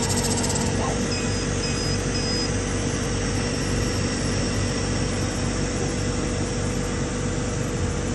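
CO2 laser cutting and engraving machine running, a steady whirring hum from its fans and motors. Three short, faint high beeps come about a second in.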